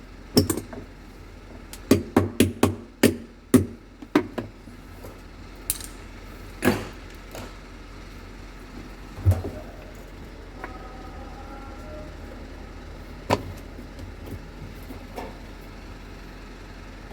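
Sharp knocks and clatter of hard parts being handled during work on a top-loading washing machine: a quick run of them in the first few seconds, then a few scattered knocks over a steady low hum.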